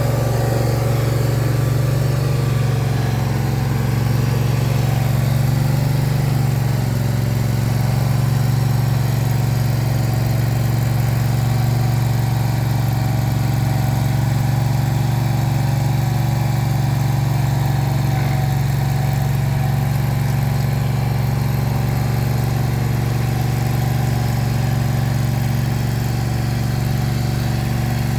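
An engine idling steadily, with a constant low hum that neither revs up nor stops.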